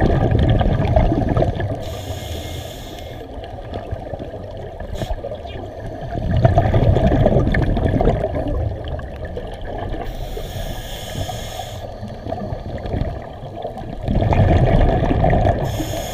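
Scuba regulator breathing underwater: a hiss on each inhale and a burst of bubbling exhaust on each exhale, about three breaths in a slow, even cycle.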